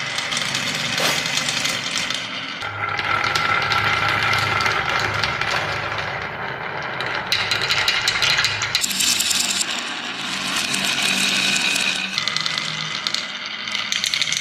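Many marbles rolling and clattering down a wooden marble run, a continuous rumbling rattle full of quick clicks as they knock against the wooden track and each other.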